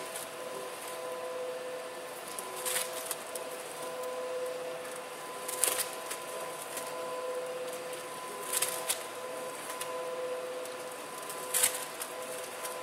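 Glass VSMF machine running as its arm turns through chicken in the stainless bowl, shredding it: a steady motor hum, with a short louder burst of noise about every three seconds as the arm comes round.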